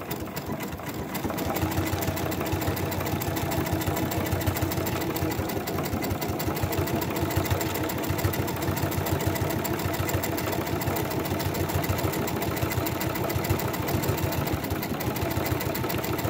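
Brother Innovis 6700D Quattro 2 computerized sewing machine running steadily while sewing a decorative stitch, its needle going in a rapid, even rhythm.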